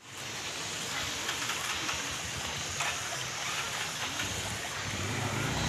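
Outdoor roadside ambience: a steady rushing noise, with a low vehicle engine hum coming in about four seconds in.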